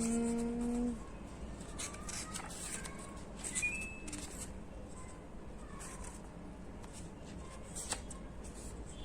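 Paper rustling and soft clicks as a card-deck guidebook is opened and its pages handled. A short steady hum-like tone sounds in the first second.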